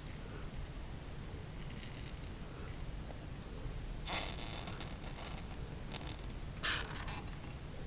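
Small handling noises at a hobby workbench while paint washes are mixed: two short scraping rustles, about four seconds in and again near the end, with fainter ones earlier.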